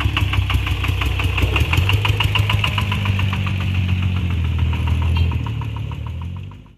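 A sand-loaded three-wheel dump truck's exposed single-cylinder diesel engine running with a rapid, even knock, about eight beats a second. It fades away over the last second or so as the truck pulls off.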